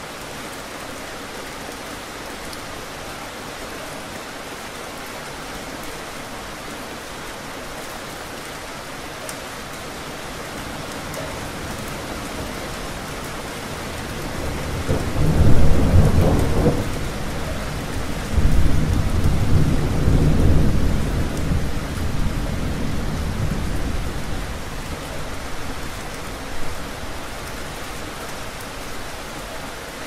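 Steady rain falling throughout, with a thunderclap rumbling in about halfway through. It peaks twice and rolls away over about ten seconds, leaving the rain.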